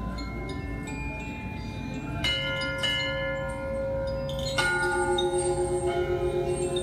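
Meditative music of struck bells, several ringing tones held long. New strikes come about two and three seconds in, and a louder one comes about four and a half seconds in. After it, a low ringing tone throbs steadily in loudness.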